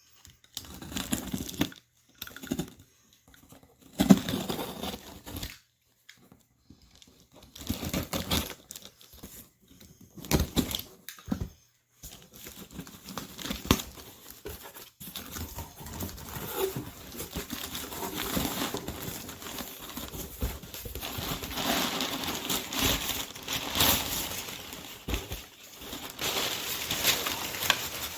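Packaging being crumpled and torn open by hand. It comes in separate bursts with pauses at first, then turns into continuous rustling from about halfway through.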